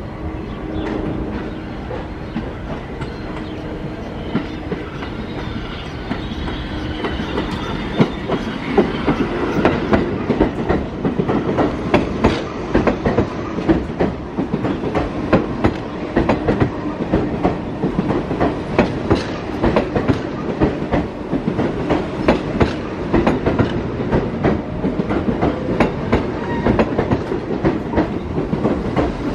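R68 subway train running into the station and along the platform. A steady whine fades out after several seconds, then the wheels click rapidly over rail joints as the cars pass.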